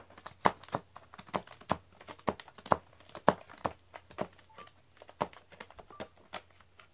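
Plastic wrapping crinkling in irregular sharp crackles, several a second, as a cat plays with and tears at it.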